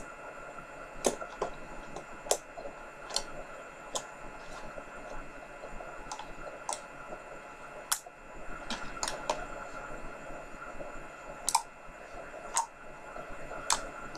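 Sticky slime being kneaded by hand in a plastic tub, giving scattered small clicks and pops at uneven intervals over a faint steady hum.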